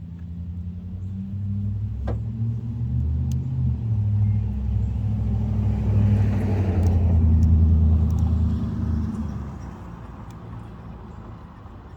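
A car engine running, growing louder and shifting in pitch to a peak about eight seconds in, then fading away.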